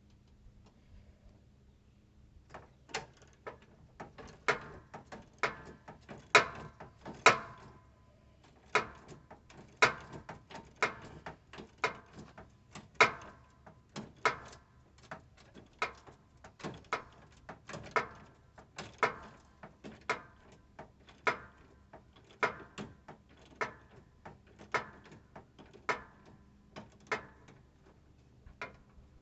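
Hand ratchet and socket clicking in short, irregular strokes, roughly one to two sharp clicks a second, as bolts are worked loose. The clicking starts a couple of seconds in and stops near the end.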